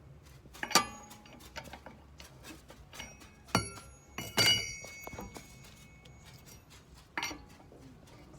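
Metal clinks and knocks of a wrench and wheel bolts being handled while a car wheel is unbolted. Four separate strikes, the loudest about four and a half seconds in, rings on briefly like struck steel.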